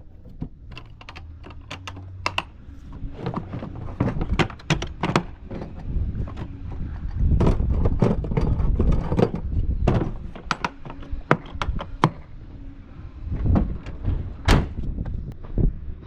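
A run of irregular knocks, clicks and thuds over a low rumble, busiest from about four seconds in.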